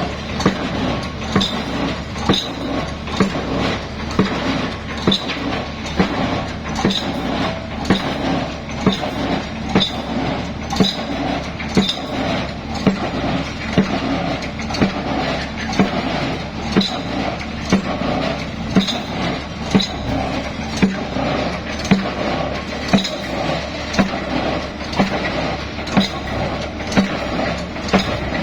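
Heavy construction machinery running steadily, with a sharp metallic knock or clank repeating about once a second.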